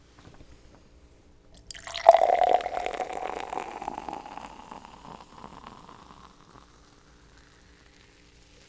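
Liquid Death Mango Chainsaw sparkling water poured from its can into a glass, starting suddenly about two seconds in with fizzing and a slowly rising filling tone, then tapering off a few seconds later.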